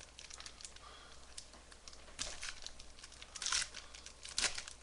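A foil trading-card pack being torn open, its wrapper crinkling in a few short bursts, the loudest about three and a half seconds in.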